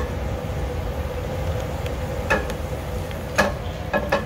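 A stainless steel sauté pan moved about on a gas burner's grate: a few sharp metal knocks, the loudest about three and a half seconds in, over a steady low rumble and hum from the lit gas range.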